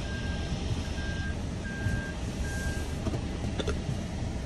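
A Toyota car's in-cabin reverse-gear beeper sounding a row of short, evenly spaced high beeps, about one a second, over the low hum of the car. The beeps stop a little before three seconds in, and a brief click follows near the end.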